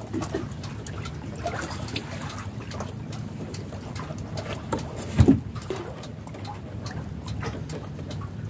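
Water lapping and trickling against a small boat's hull over a steady low rumble, with scattered small handling clicks and one louder thump about five seconds in.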